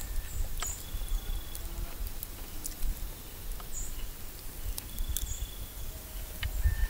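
Short, very high chirps, a few at a time, over a low rumble, with scattered small clicks from eating whole fried crappie.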